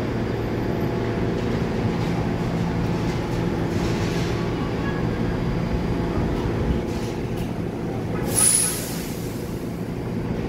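New York City subway train approaching on elevated track: a steady rumble of wheels and motors, with a brief high squeal a little past eight seconds in.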